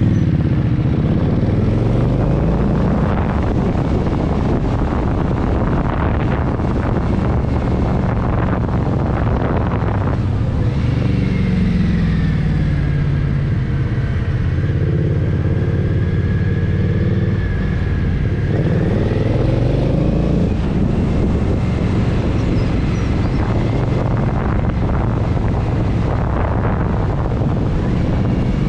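Indian Scout Sixty's liquid-cooled V-twin engine running on the road. Its note climbs and drops several times through the gears in the first half, holds lower and steadier for a stretch in the middle, then climbs again near the end.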